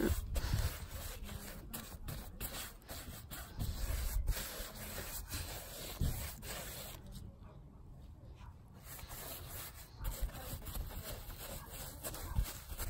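A paintbrush stroking fence paint onto a wooden fence panel: repeated bristly brushing and rubbing over the wood, with a brief lull past the middle.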